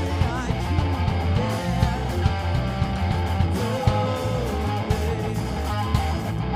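Live rock band playing, with electric bass guitar and guitar over a steady drum beat.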